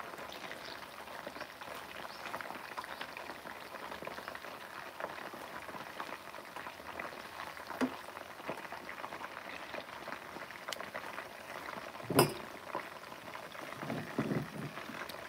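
Chicken wings frying in hot oil in a pan: a steady bubbling sizzle with many small pops and crackles. A single sharp knock about twelve seconds in.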